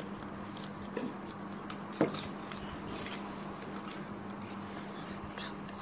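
Quiet room tone with a steady low hum and a few faint clicks and rustles of handling, the loudest a short sharp tick about two seconds in.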